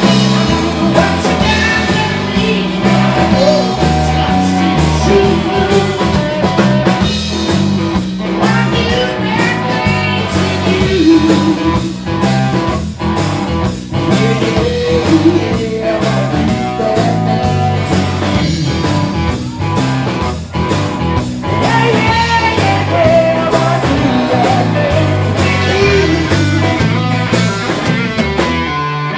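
Live blues-rock band playing a slow, steady groove on drum kit, bass and electric guitar, with an amplified harmonica played into a cupped handheld microphone carrying bending, wailing notes over the top.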